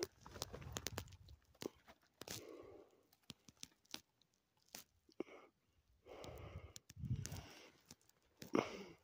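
Faint, irregular crunching and rustling of dry grass, with scattered clicks, loudest near the end.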